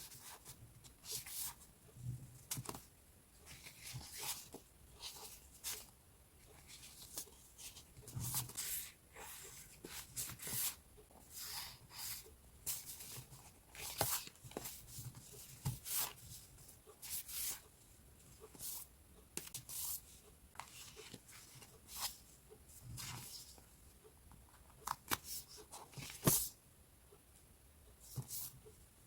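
Sheets of decorative scrapbooking paper rustling and crinkling as they are handled and shuffled, in irregular short swishes.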